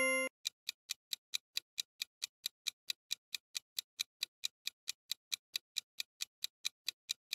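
Ticking clock sound effect of a quiz countdown timer: short, even ticks at about four and a half a second. The tail of a chime cuts off just at the start.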